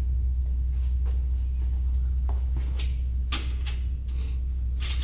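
Several sharp clicks and knocks of a woodworking saw's fittings being moved and adjusted by hand, over a steady low hum.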